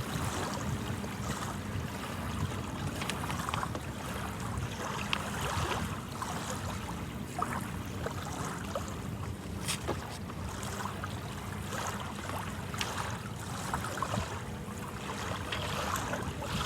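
Outdoor wind buffeting the microphone, with surf at the beach under it: a steady rushing noise with a few faint clicks.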